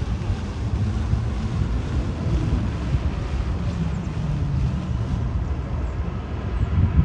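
Wind buffeting the microphone: a steady low rumble, with a faint low hum for about a second near the middle.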